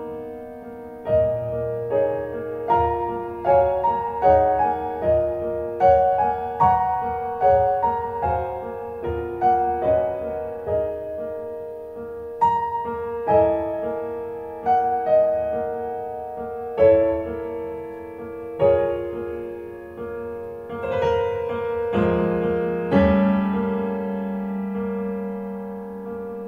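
Solo piano music played back through Dali Menuet bookshelf loudspeakers driven by a NAD 304 amplifier, heard in the room. A slow melody of single notes struck about every 0.7 seconds over held chords, with deeper bass notes coming in about 22 seconds in.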